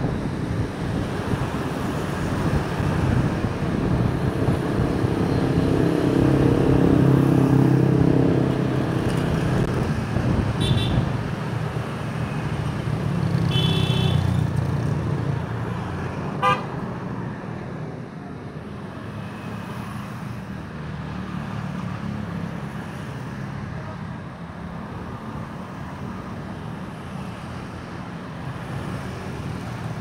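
Road traffic passing close, motor vehicle engines swelling loudest about six to nine seconds in and again around fourteen seconds. Short high horn toots sound around eleven and fourteen seconds in, and a single sharp click comes about sixteen seconds in.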